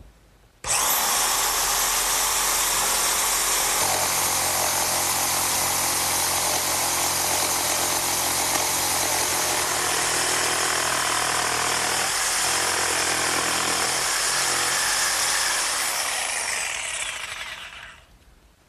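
Portable electric jigsaw cutting a curve through a wooden side panel: a steady saw noise that starts suddenly about a second in and dies away near the end as the cut is finished.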